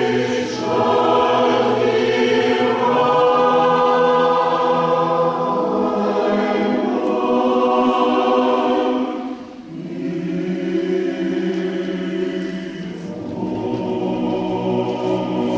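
Mixed men's and women's choir singing Orthodox Carpathian chant a cappella in sustained chords, with a short break about two-thirds of the way through before the next phrase begins.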